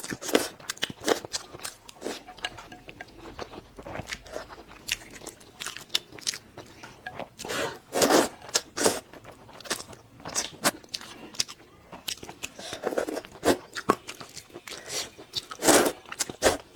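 A person biting and chewing crunchy food, with irregular sharp crunches throughout and a few louder bites about halfway through and near the end.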